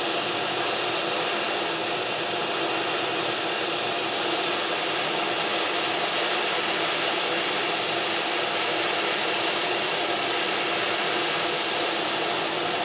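Hot-air rework station blowing a steady hiss of hot air (300 °C, airflow setting 6) onto a surface-mount chip to melt its solder for desoldering.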